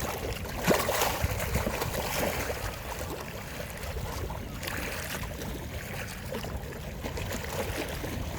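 Small lake waves lapping and splashing at the shore, with wind rumbling on the microphone. A louder slap of water comes just under a second in.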